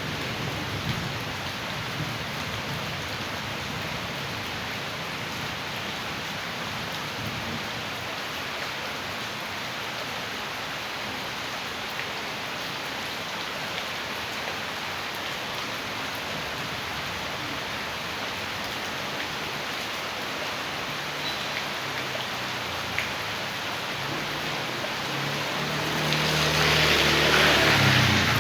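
Steady heavy rain with rainwater running in a continuous hiss. A motor vehicle approaches near the end, its engine and wet hiss swelling to the loudest point.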